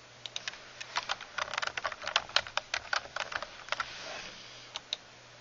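Computer keyboard typing: a quick run of keystrokes lasting about three and a half seconds, then two more single key clicks near the end.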